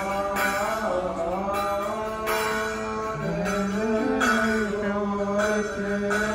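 Coptic Orthodox procession hymn chanted by voices: a slow melody of long held notes, rising and falling about halfway through.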